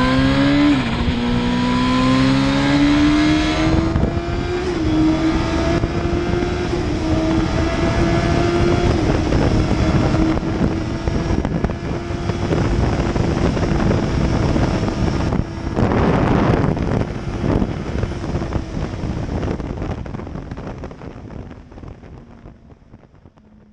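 Turbocharged Suzuki GSX-R1000 K5 inline-four engine pulling hard with its pitch rising, then running at a steady speed. A loud rush of noise comes about sixteen seconds in, and the sound fades out near the end.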